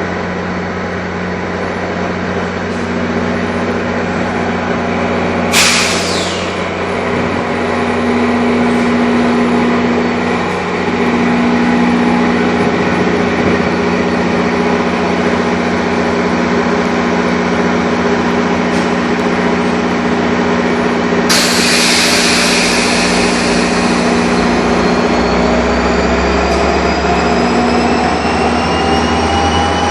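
NJ Transit train standing at a station platform with a steady low hum. Two sudden hisses of released air come about 6 and 21 seconds in. From about 24 seconds a whine rises steadily in pitch as the train starts to pull away.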